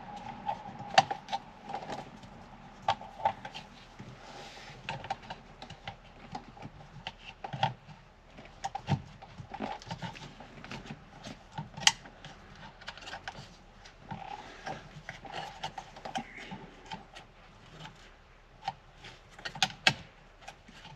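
Irregular small plastic clicks, taps and rattles from steering-column trim and switch parts being handled and pushed into place, with wiring connectors being fitted together.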